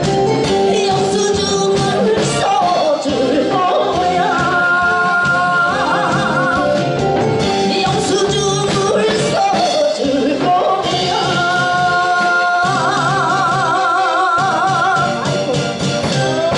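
A woman singing a Korean trot song live into a microphone, with instrumental accompaniment. She holds long notes with a wavering vibrato twice.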